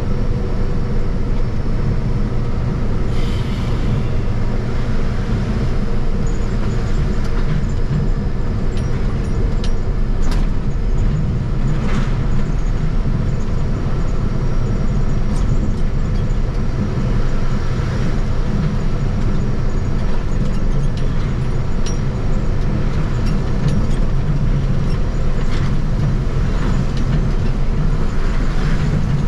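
Truck driving at a steady speed: a continuous low rumble of engine and road noise.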